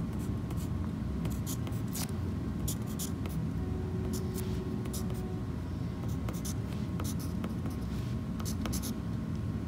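Wooden graphite pencil scratching on paper in many short, separate strokes as characters are written, over a steady low background rumble.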